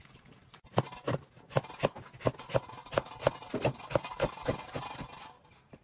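A kitchen cleaver slicing chayote on a wooden chopping board, in steady chops about three a second, starting about a second in and stopping near the end.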